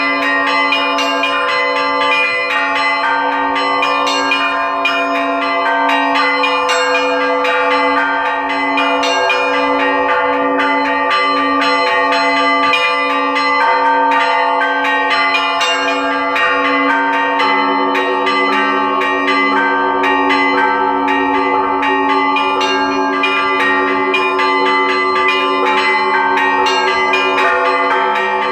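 A set of LITEX-cast Russian Orthodox church bells rung by hand in a traditional zvon: small bells chime quickly over a mid-sized bell struck at a steady pulse, the tones ringing on and overlapping. About two-thirds of the way through, a deeper bell joins and the pattern changes.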